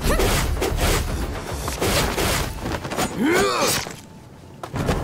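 Fight-scene sound effects: quick whooshes and impact hits over dramatic music, with a short rising-and-falling cry a little after three seconds in and a last hit near the end.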